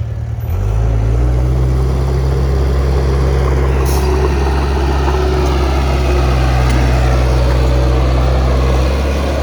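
Heavy earthmoving machine's diesel engine running steadily under load, getting louder about half a second in and then holding an even low drone.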